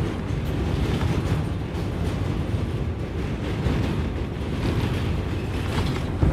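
Wind buffeting the phone's microphone: a steady, rough low rumble with some passing vehicle or rail noise beneath it.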